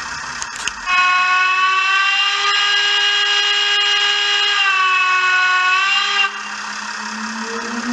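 Märklin BR 03 model steam locomotive's digital sound decoder playing a long steam whistle through its small loudspeaker. The whistle holds steady for about five seconds, sags a little in pitch and cuts off, after a couple of clicks at the start; a low hum starts near the end.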